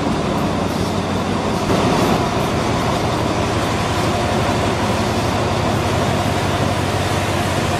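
Diesel-electric locomotive with its engine running in a steady drone as it rolls slowly along the platform.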